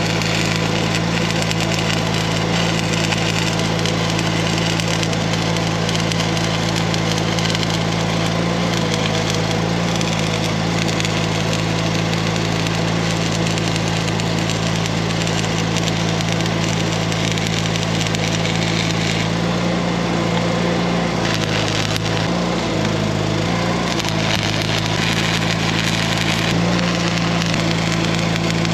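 Arc welding on a steel irrigation pivot pipe: the steady crackle of the arc, with a constant low machine hum underneath.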